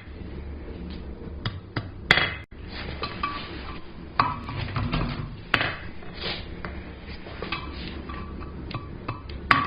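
Hand hammer striking hot 3/8-inch square iron bar on the heel of an anvil, straightening a forged hook. The blows are spaced and irregular, some with a short ring. A steady low hum runs underneath.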